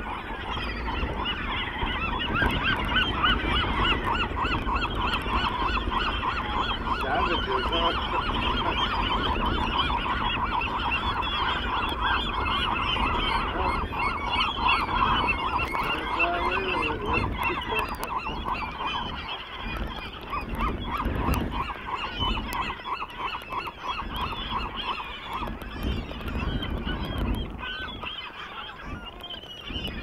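A feeding flock of gulls calling all at once, a dense chorus of overlapping squawking calls that thins to scattered calls near the end.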